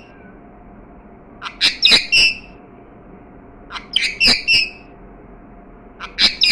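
Pet parrot squawking in three short bursts of sharp, high calls about two seconds apart.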